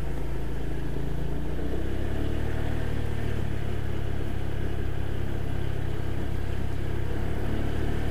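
Motorcycle engine running steadily at low speed, its note rising slightly about a second and a half in.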